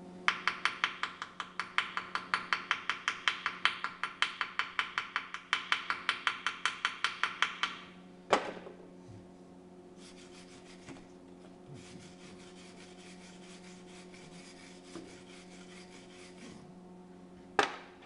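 Rapid rhythmic metal-working strokes on a fresh stitch weld on a cast-iron tractor axle housing, about four a second for roughly eight seconds. Then a sharp click, a faint steady hiss, and another sharp click near the end.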